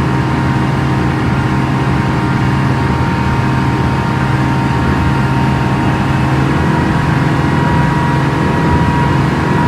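Mercury outboard motor on a speedboat running steadily under way, with a strong low hum and a thin whine above it that grows a little louder about two-thirds of the way through.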